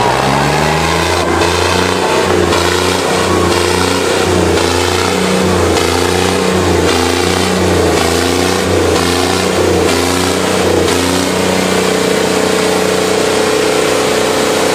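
Tractor engine sound revving: the pitch climbs in the first second, surges up and down over and over, then settles into a steadier run near the end.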